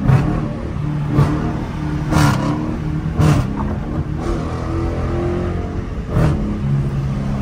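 Dodge Challenger R/T's 5.7 HEMI V8 exhaust heard from inside the cabin as the car speeds up on the freeway, with its low drone shifting pitch a few times. A sharp thump comes about once a second.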